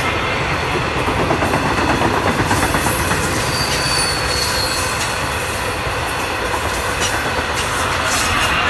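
Long Island Rail Road bi-level passenger coaches rolling past at speed: a steady loud rumble of steel wheels on rail with clattering over the joints. A thin high wheel squeal comes in briefly near the middle.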